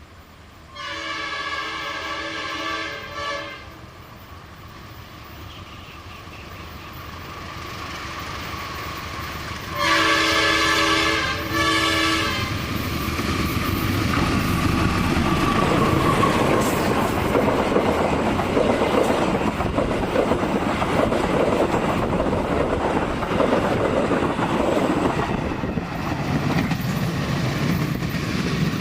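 A CC 201 diesel-electric locomotive sounds its multi-tone horn: a long blast and a short one, given twice about eight seconds apart. Then the locomotive and its train pass, the engine and wheel clatter growing louder and holding as it climbs the grade.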